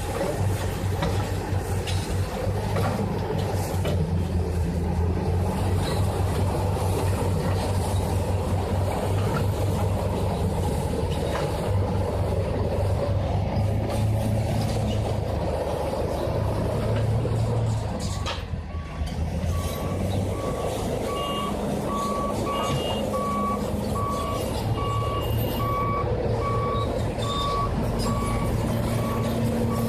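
Komatsu D355 bulldozer's diesel engine running steadily under load. About two-thirds of the way through the engine note dips briefly and the reversing alarm starts beeping about once a second as the dozer backs up.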